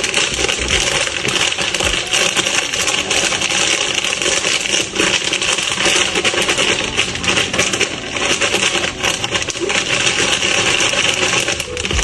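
Dense, continuous crackling and crinkling of snack wrappers and foil packaging being handled close to the microphone.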